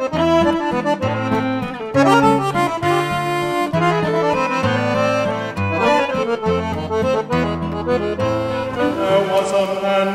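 Instrumental background music with a bass line of short notes changing about every half second under a melody.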